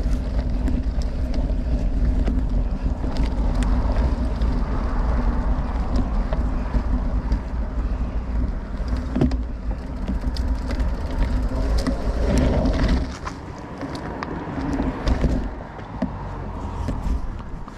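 Riding noise from a Specialized Diverge gravel bike on Maxxis Rambler tyres going down a dirt trail: wind buffeting the microphone and tyres rolling over dirt, with scattered clicks and rattles. The low rumble drops off about thirteen seconds in.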